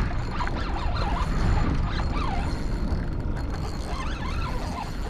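A fishing reel working while a hooked fish pulls on the line: a mechanical whirring with faint squeals, over a steady rushing noise.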